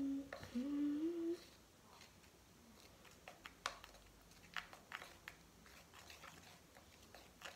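A brief wavering hum in the first second and a half, then a run of faint, irregular sticky clicks and squelches as a spoon stirs thick homemade slime in a small cup.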